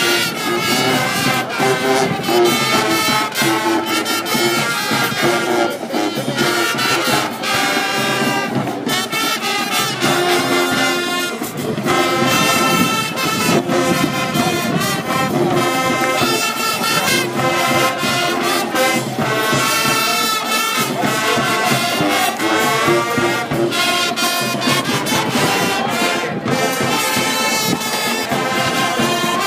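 High school marching band playing: brass led by trombones and trumpets, over a steady drumline beat.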